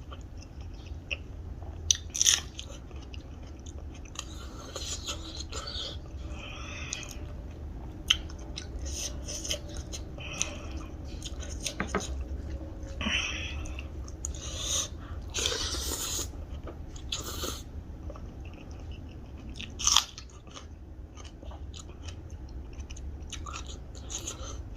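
Close-up eating sounds: a mouth chewing and biting food, with irregular crunches and small sharp clicks, over a steady low hum.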